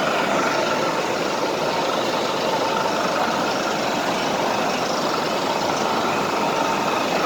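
Water rushing steadily over a river waterfall, a constant even roar.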